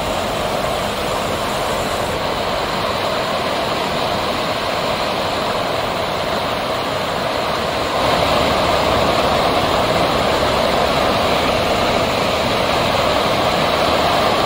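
Floodwater rushing down a river in spate, running bank to bank: a steady, even rush of water that grows louder about halfway through.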